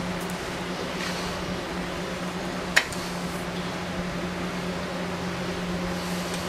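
Steady low machine hum of a fan-like appliance running in a small room, with one short sharp click about three seconds in.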